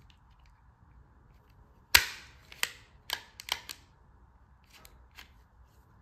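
WAGO Quickstrip 206-1125 automatic wire stripper working on a 12-gauge wire: one sharp snap about two seconds in as the jaws clamp, cut and pull off the insulation, followed by several lighter clicks of the tool's mechanism.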